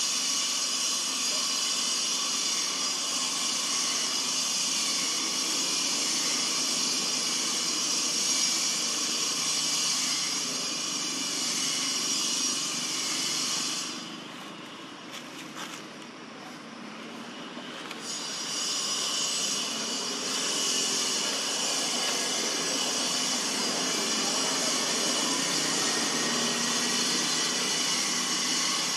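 Forest insect chorus, cicadas and the like: a steady high buzzing hiss that fades out for a few seconds about halfway through, then comes back.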